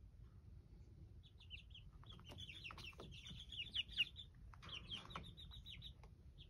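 A flock of 24-day-old black Jersey Giant chicks peeping: many quick, high chirps that slide down in pitch, starting about a second in and growing busy, with one sharp tap near the middle.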